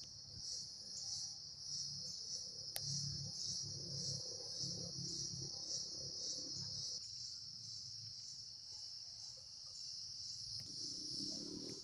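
Crickets or similar insects calling in a steady, high-pitched chorus with a slight pulse. Fainter low sounds run underneath and drop away for a few seconds about seven seconds in.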